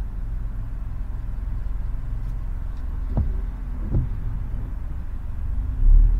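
Low rumble of a car's engine and road noise heard inside the cabin while creeping in traffic on a wet road. A windshield wiper makes one sweep about three seconds in, with a short knock at about three seconds and another about a second later. The rumble swells near the end as the car moves off.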